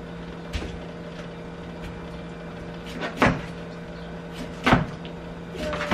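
A few knocks and clunks, two louder ones in the middle, as a cut-up mackerel and a knife are handled at a stainless-steel kitchen sink and plastic cutting board, over a steady low hum.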